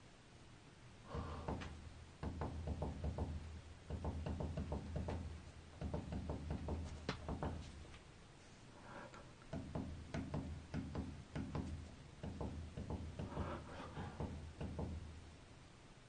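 Runs of rapid clicking and knocking from the buttons on a washing machine's control panel being pressed over and over. The machine, with its power cut, gives no beep or other response.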